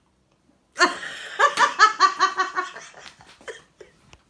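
A person bursting into laughter about a second in, a quick run of ha-ha-ha that fades out after two seconds or so.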